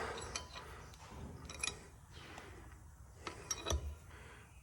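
Faint, scattered metallic clinks and taps, with a dull knock near the end, as a heavy combine wheel is shifted against its hub while being lined up for the bolts.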